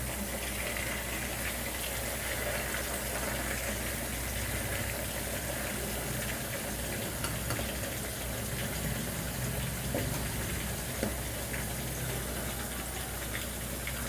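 Coated chicken pieces deep-frying in hot oil in a kadai, a steady bubbling sizzle, with a couple of light knocks about ten seconds in.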